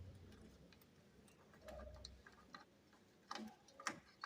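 A few faint, sparse clicks and taps of plastic power-supply cable connectors being handled and pushed into place inside a computer case, over near silence.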